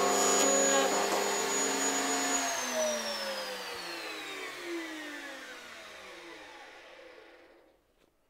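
Router mounted in a router table, fitted with a dovetail bit, running at full speed, then switched off about two and a half seconds in; its whine falls steadily in pitch and fades as the motor spins down to a stop near the end.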